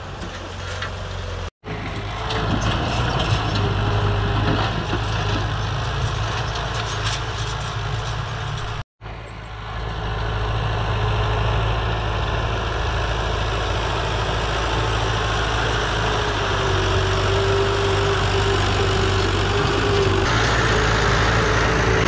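New Holland 640 tractor's diesel engine running steadily under load while pulling an 18-disc harrow. The sound cuts out completely twice for a moment, once near the start and again about nine seconds in, and is a little louder after that.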